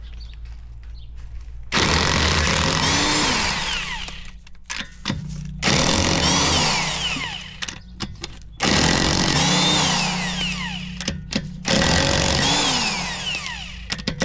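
Power impact wrench spinning off wheel lug nuts in four bursts of two to three seconds each. The motor's pitch rises and falls within each burst, with short clicks in the gaps between.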